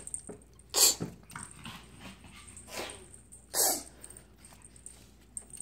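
An excited Japanese chin making a few short, breathy huffs, about a second apart, the loudest about a second in.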